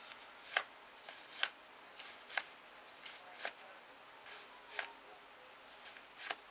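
Trading cards being flicked and slid one after another in gloved hands: about a dozen short, crisp snaps at an uneven pace, roughly one or two a second.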